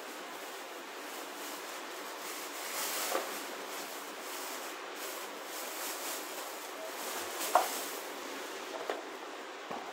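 Light handling and rustling of objects being sorted through by hand, with a few soft knocks (one a little louder about seven and a half seconds in), over a steady hiss.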